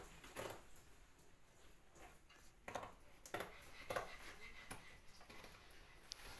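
Scissors cutting through cardboard: a few faint, irregular snips.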